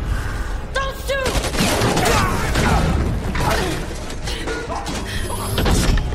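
Horror-film soundtrack: music and sound effects mixed together, with two short cries that rise and fall in pitch about a second in, over a low rumble and impacts.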